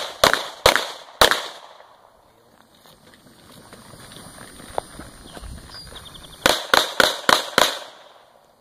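Pistol shots: three quick shots in the first second and a half, then a fast string of five shots about a quarter-second apart near the end.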